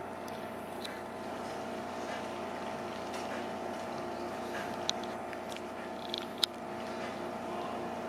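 A motor running steadily with an even, humming drone. Three short sharp clicks come in the second half.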